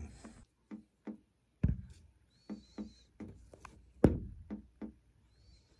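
Plastic compression nuts and pipe fittings on a tub/shower valve being handled and snugged by hand: a run of short squeaks and light clicks, with two sharper knocks about a second and a half in and again near four seconds.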